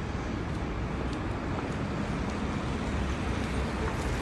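Steady city street background noise: a low rumble of road traffic.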